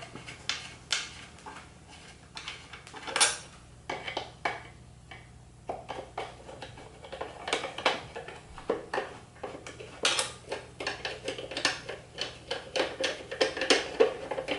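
Screwdriver turning out the top screws of a vintage Evinrude 3 HP outboard's metal engine cover: irregular metallic clicks and scrapes, with a louder clink about three seconds in and a quicker run of clicks in the last few seconds.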